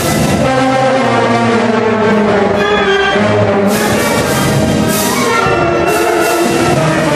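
School concert band of saxophones and brass playing a piece with sustained chords, with three loud crashes in the second half.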